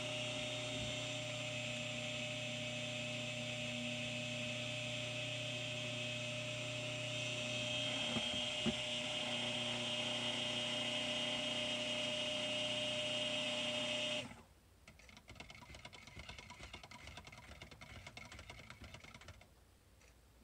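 Handheld stick blender running steadily in soap batter, blending it past a medium trace. The motor cuts off about fourteen seconds in, followed by a few seconds of fainter, uneven noise.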